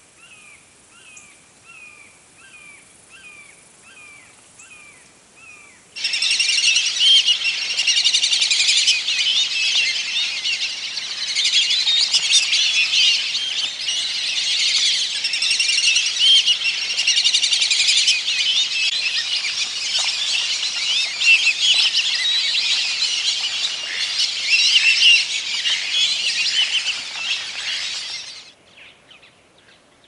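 A faint call repeated about twice a second, then from about six seconds in a loud, dense chorus of high whistled calls from a flock of black-bellied whistling ducks, cutting off abruptly near the end.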